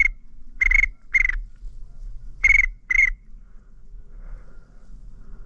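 Duck whistle call blown close by in short paired high whistles, calling to drakes overhead: two quick pairs of notes, then it stops about three seconds in.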